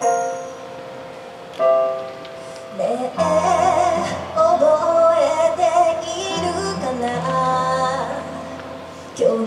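A woman singing into a microphone over a backing track through a PA speaker. The track opens with a few sustained piano notes, and her voice comes in with the bass about three seconds in.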